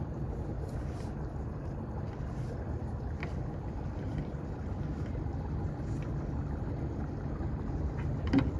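Steady low rumble of wind buffeting the microphone and boat noise on the water, with a few faint clicks and one sharp knock near the end.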